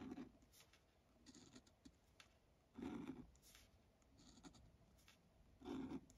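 Fineliner pen drawing on paper: about five faint, short strokes, roughly a second and a half apart.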